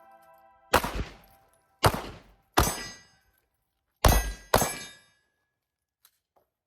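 Five shots from a Sig Sauer P320 9mm pistol: three spaced about a second apart, then a quick pair, each with a short ringing tail.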